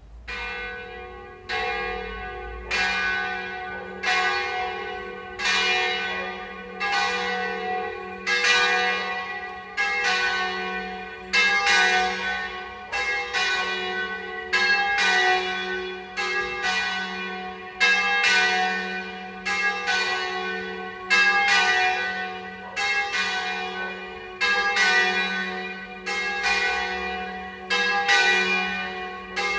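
Two church bells, tuned F♯ and G♯, start ringing in alternation, about one stroke a second, each stroke ringing on as the next one sounds.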